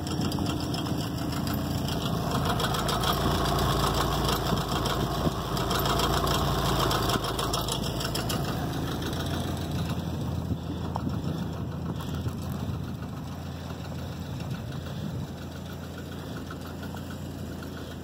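A 1987 Dodge Raider's engine running close by, louder for the first several seconds and then easing off to a steadier, quieter run.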